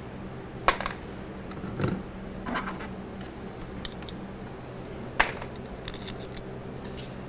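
Metal hand tools and small saw parts handled on a workbench: two sharp clinks, one under a second in and one about five seconds in, with softer rattles and scrapes between them, over a steady low hum.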